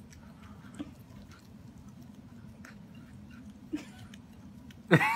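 Quiet room tone with a few soft clicks, then near the end a Shih Tzu's sudden loud whine that sweeps up and falls back down in pitch.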